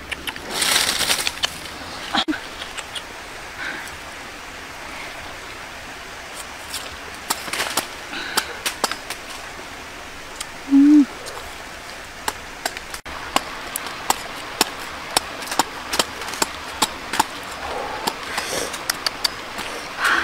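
Machete cutting the rind off a pineapple: short, sharp cutting clicks, sparse at first and coming thick and fast in the second half, over a steady background hiss.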